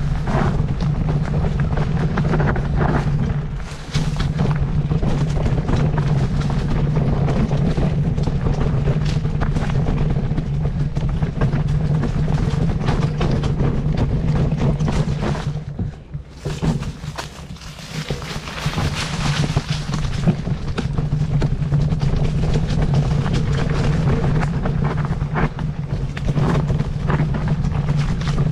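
An engine running steadily with a low hum, under a rushing noise, dipping briefly about four seconds in and again for a couple of seconds past the middle.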